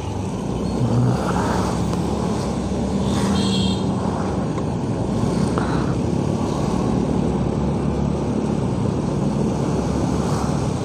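Motorcycle engine running steadily while riding on a wet road, under a constant rush of road and wind noise. A brief high-pitched tone sounds a little over three seconds in.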